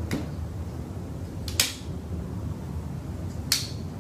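Two sharp clicks, about two seconds apart, as hook fittings are worked out of and knocked against an aluminium rail channel.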